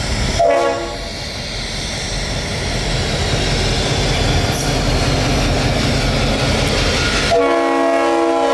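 CSX diesel freight locomotives passing close by, engines running and wheels rolling on the rails, growing louder as they come alongside. The air horn gives a short toot about half a second in and starts a long chord near the end.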